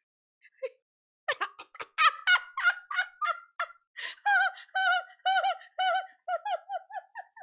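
A woman laughing hard: a long fit of rapid, high-pitched bursts, about four a second, breaking out about a second in and running on without words.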